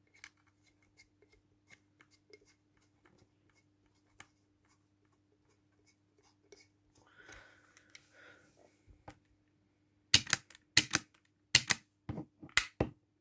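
Handling noise from a SIG Sauer SP2022 CO2 airsoft pistol being turned over in the hands: scattered faint clicks and a short soft rustle, then, about three seconds before the end, a run of about six sharp, loud clicks and knocks.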